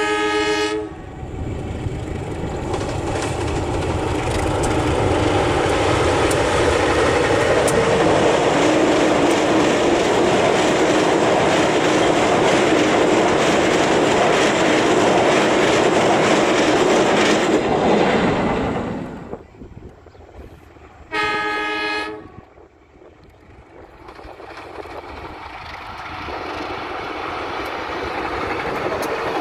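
Diesel-hauled passenger train: a horn blast, then the train passing close with a loud rumble and clatter of wheels on rail that ends about nineteen seconds in. About twenty-one seconds in there is a second short horn blast, and near the end a fainter rumble rises again.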